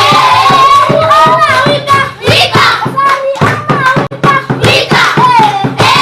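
A group of children singing together, with steady hand-clapping in time, about three claps a second.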